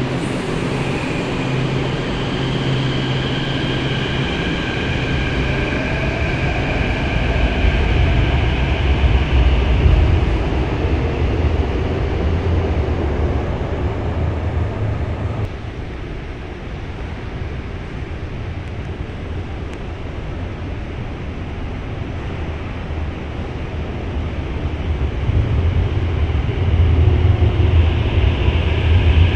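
Metro train pulling out of an underground station: its electric traction motors whine, with a tone rising as it accelerates under a steady rumble that peaks and then drops away about halfway through. Near the end a rumble with a high whine builds again.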